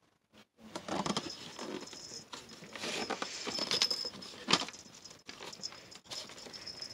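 Plastic plaque of a Christmas Big Mouth Billy Bass being handled and turned over: rubbing and scraping against the hands, with several sharp knocks and clicks.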